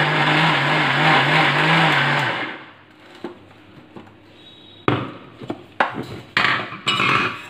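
Kitchen mixer grinder running, grinding steamed carrots and sugar into a thick paste, with a steady motor hum; it is switched off about two and a half seconds in and winds down. Later come a few short knocks and clatters as the jar is lifted off the motor base.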